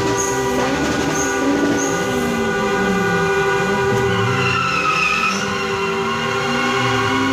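Several car horns held down together, a steady chord of tones over the cars' engines. A higher wavering tone rises and falls about four to five seconds in.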